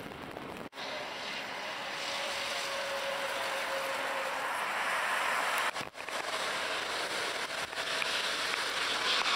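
Jet airliner on final approach: a steady rushing engine noise with a faint whine, growing louder as the plane comes nearer, broken twice by short gaps.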